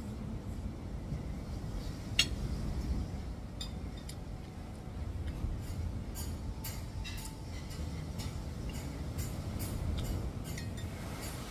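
Metal fork and spoon clinking against a plate and bowl while eating. One sharp clink about two seconds in is the loudest, followed by a run of lighter clinks in the second half, over a steady low background rumble.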